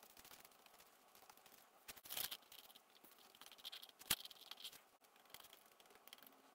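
Near silence, broken by a few faint scratching sounds about two seconds in and a light tap about four seconds in, as of a paintbrush working paint onto paper.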